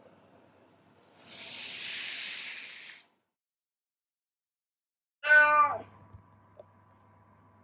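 A soft hiss-like rush of noise lasting about two seconds, then after a gap of silence a cat gives one loud meow that falls in pitch, over the low electrical hum of a pet camera's microphone: the night-time crying of a newly rescued former stray cat shut in indoors.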